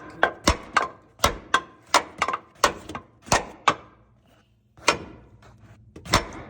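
Hammer banging on metal, driving a stuck part out of a Chevy Express 1500's upper control arm mount: a quick run of about a dozen sharp blows, a short pause, then a single blow and more blows starting near the end.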